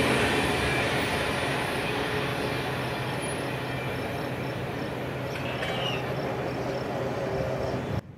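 A train rolling past on the rails, a steady rumble that slowly fades and is cut off abruptly near the end.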